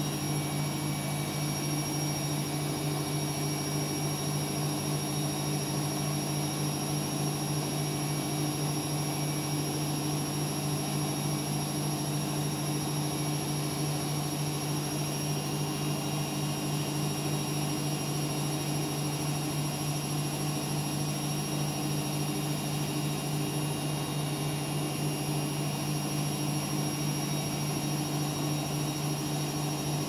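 Siemens front-loading washing machine running steadily, a constant hum with a high whine above it that holds the same pitch throughout.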